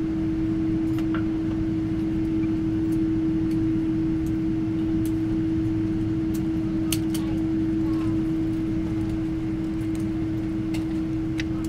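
Steady cabin hum inside a Boeing 777-300 after landing, with one steady tone standing out over a low rumble and a scattering of brief light clicks.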